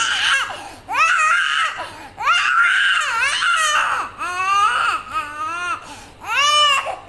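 Young child crying in about five high, wavering wails with short breaths between.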